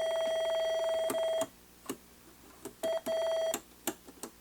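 Steady electronic test tone from a transistor tester, a buzzy beep with overtones. It cuts out about a second and a half in, comes back twice in short stretches with clicks between as the probes make and break contact, and resumes near the end.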